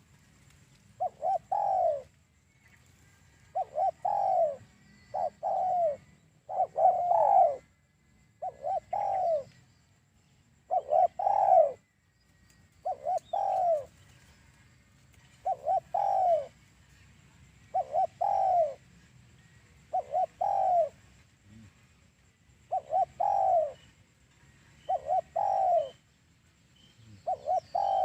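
Spotted dove (tekukur) cooing over and over, a short phrase of two or three notes about every two seconds, played as a lure call for trapping doves.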